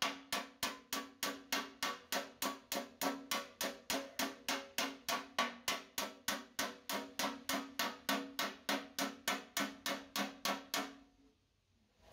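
Hammer striking metal in a steady rhythm, about three and a half blows a second, each blow leaving a ringing tone; the hammering stops near the end.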